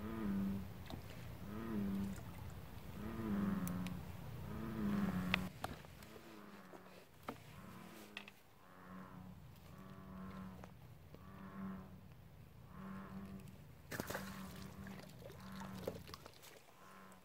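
Frog calls typical of an American bullfrog: a regular series of low, mooing notes about one a second, louder in the first five seconds and fainter after. A few sharp clicks are scattered through, one about fourteen seconds in.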